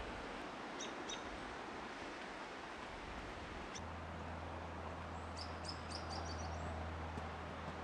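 Forest ambience: a steady rushing hiss with small birds chirping, a couple of brief high chirps about a second in and a quick twittering run of high chirps a little past the middle. A low steady hum comes in about four seconds in.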